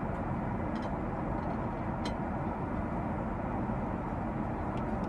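Steady cabin noise of an Airbus A380 in flight: a constant low rushing hum of airflow and engines, with a few faint light clicks.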